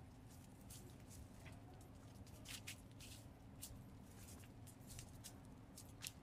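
Faint, irregular crackles and ticks, a few each second, over a low steady hum.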